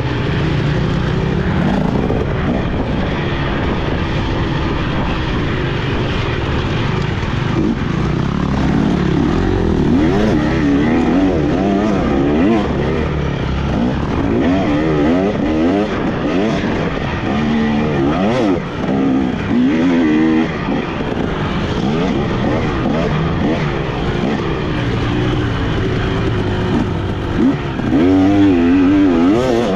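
Motocross dirt bike engine revving hard under race throttle, its pitch climbing and dropping again and again with throttle and gear changes.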